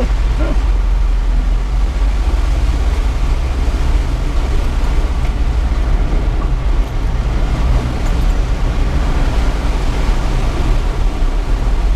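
Mitsubishi Triton ute running steadily, heard from inside the cab as a low engine and drivetrain rumble with tyre and road noise while driving off-road.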